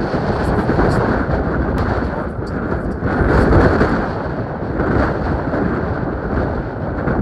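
Wind buffeting the microphone: a loud, rough rumble that swells and eases in gusts, heaviest a little past the middle.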